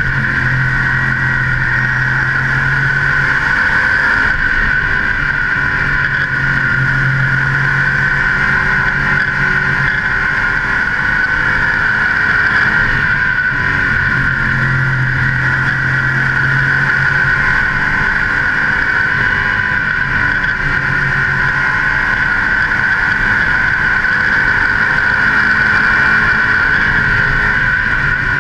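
Modified race car's V8 engine running hard at racing speed, heard from a camera mounted on the car with wind noise over it. The engine note shifts every few seconds.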